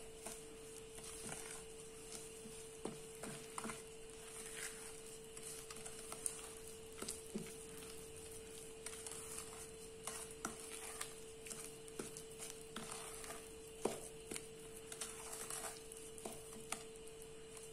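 Wooden spoon stirring a thick creamed butter and sugar mixture in a glass mixing bowl, with faint, irregular soft taps and scrapes. A steady faint hum runs underneath.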